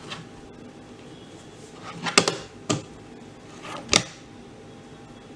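A few sharp plastic clicks and clacks from handling a 6x6 Rubik's cube: a short cluster about two seconds in, another click just after, and a louder one near the end.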